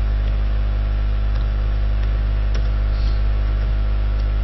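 Steady electrical hum with a background hiss, with a few faint, scattered clicks of computer keys as a shell command is typed.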